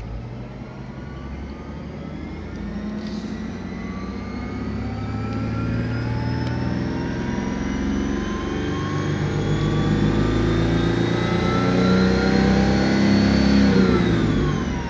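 Ford Mustang V6 engine revving up slowly and steadily, then dropping back quickly near the end. A high whine rises and falls with the revs, turbo-like; the owner puts it down to the alternator.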